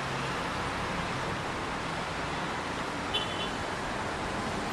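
Steady outdoor hiss of street traffic and air, with a short high chirp about three seconds in.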